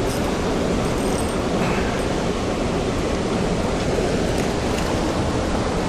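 Steady rushing noise of the Hocking River's current, running high.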